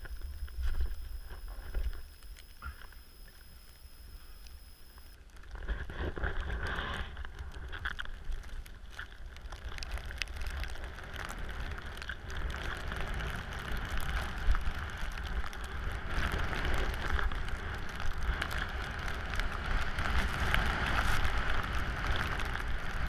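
Snowboard sliding through deep powder snow: a rough, continuous hiss of the board cutting through the snow, growing louder from about five seconds in, over a low rumble of wind buffeting the microphone.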